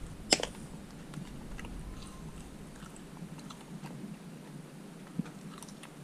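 A sharp click about a third of a second in, followed by scattered faint small clicks over a quiet background.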